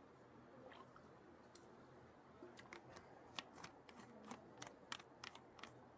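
Near silence: quiet room tone with a scatter of small, sharp clicks and ticks in the second half.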